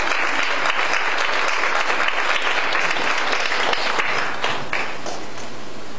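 Congregation applauding, a dense patter of clapping that dies away about five seconds in, leaving a steady hiss.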